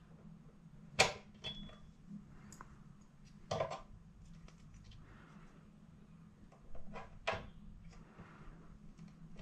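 Small metal pliers and a plastic cable connector clicking and tapping as they are worked inside an opened projector: one sharp click about a second in, the loudest, then a few softer clicks and knocks at uneven gaps.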